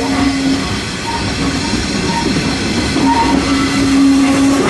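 Small steam locomotive running along the track, heard from its open cab: working and rail noise with a low steady tone through much of it.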